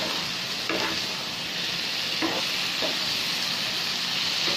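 Thick spice paste with salted fish sizzling in a stone-coated wok as a metal spoon stirs it, with a few scrapes of the spoon against the pan.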